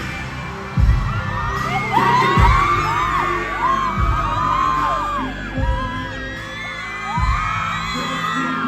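Loud K-pop music with a heavy bass hit about every one and a half seconds, and a crowd of fans screaming in high, gliding shrieks over it.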